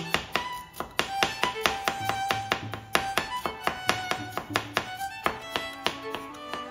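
Kitchen knife chopping ginger on a cutting board: a quick, even run of sharp taps, several a second. Background music with a violin plays underneath.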